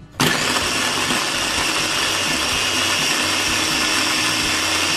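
Electric blender running steadily, grinding chillies, shallots, garlic, shrimp paste and tomato with a little oil into a coarse spice paste. It starts up sharply just after the start and cuts off abruptly at the end.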